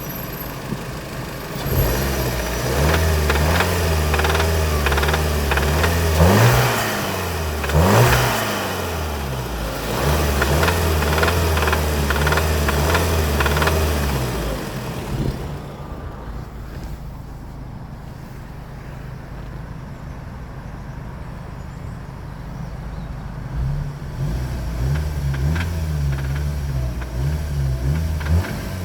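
VW Arteon's 2.0 TSI (DJHC) turbocharged four-cylinder petrol engine running under load, its revs rising twice in quick succession, then dropping to a quieter spell before pulling again near the end. It runs with the knocking that shows up from about 2,000–3,000 rpm, a fault whose cause the owner does not know.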